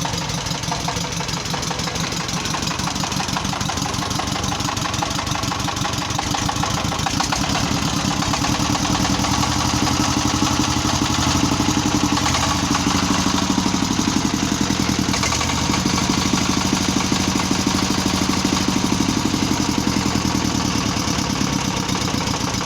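A 1115-type single-cylinder diesel engine running with a rapid, even firing beat. It gets louder about seven seconds in, dips briefly around twelve seconds, and picks up again soon after.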